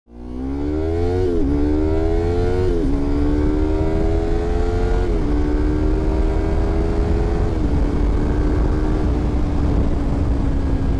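Sport bike engine accelerating up through the gears: its pitch climbs and drops back at four upshifts, each climb slower than the last, then holds nearly steady at cruising speed. Heavy wind rumble on the microphone runs underneath.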